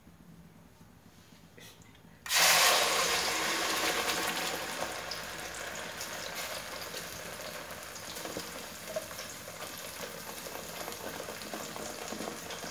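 Ground green masala paste of onion, coriander and green chilli hitting hot oil in an aluminium pot: a sudden loud sizzle about two seconds in that slowly dies down to a steady frying hiss.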